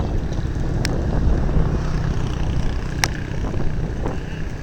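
Boat engine running steadily with a low rumble, with two sharp clicks, about one and three seconds in.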